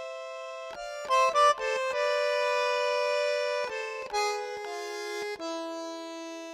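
Background music of held, reedy chords that change every second or so, with a quick run of short notes about a second in.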